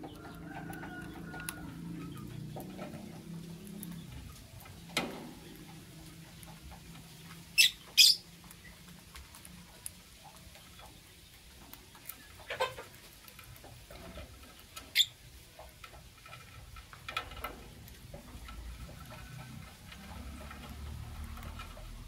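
Blue lovebirds giving a handful of short, sharp, shrill chirps, spaced a few seconds apart, the loudest two in quick succession about eight seconds in.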